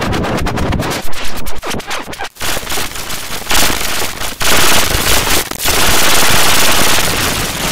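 Harsh, digitally distorted glitch audio. A rapid machine-gun-like stutter of clicks runs for the first couple of seconds, then gives way to loud, crackling static that cuts in and out and settles into a steady hiss near the end.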